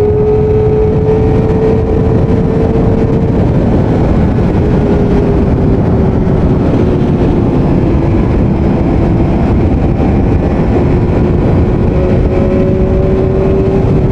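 Kawasaki Ninja ZX-25R's 249 cc inline-four engine running steadily at highway cruising speed, a high-pitched drone whose pitch eases down slightly a few seconds in and then holds. Heavy wind and road noise rushes underneath.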